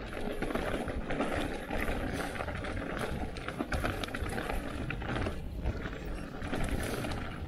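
Mountain bike rolling fast downhill over a rough trail, its tyres crunching on the ground and the bike rattling with many small knocks over bumps. Wind rumbles steadily on the microphone.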